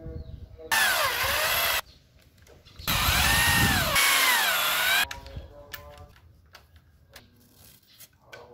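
Corded electric drill run twice, first for about a second and then for about two seconds, drilling into wood, its whine dipping and rising in pitch. Light clicks and handling sounds follow.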